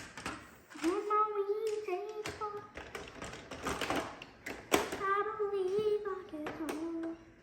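A child's voice singing long held notes, over taps and clicks of plastic parts being handled as a Roomba robot vacuum is put back together.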